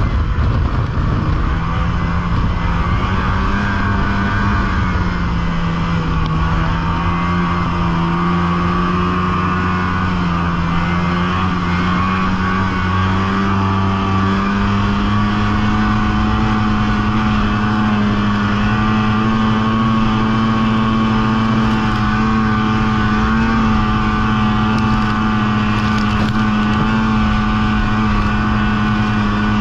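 Snowmobile engine running under way, a steady drone whose pitch dips slightly about five seconds in, then climbs gradually and holds steady.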